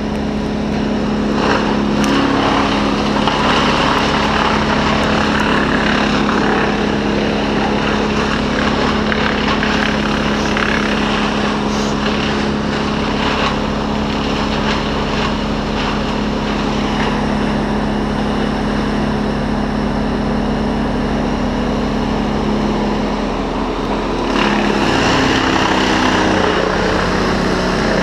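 A large engine running steadily at a constant speed, changing speed and getting a little louder about 24 seconds in.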